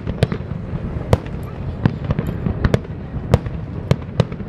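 Aerial firework shells bursting: about eight sharp bangs at uneven intervals, over a steady low background rumble.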